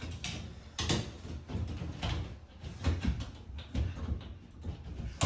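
Irregular clicks and knocks of hands working metal fittings on a PER washbasin supply plate set in the wall, with one sharper knock near the end.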